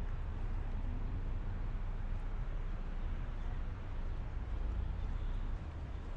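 Steady low rumble and hiss of outdoor ambience, with no distinct event standing out.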